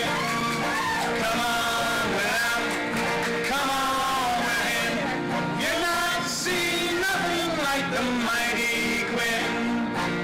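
Live acoustic folk band playing: several acoustic guitars and a banjo strummed together, with voices singing over them.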